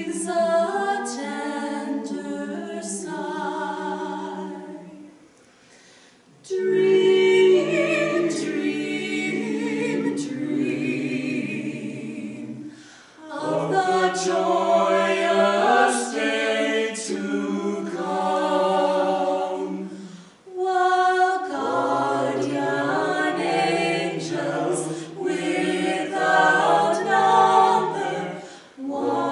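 Mixed vocal quartet, two men and two women, singing a cappella in four-part harmony. The song goes in phrases several seconds long, with a break of about a second and a half around five seconds in and short breaths between the later phrases.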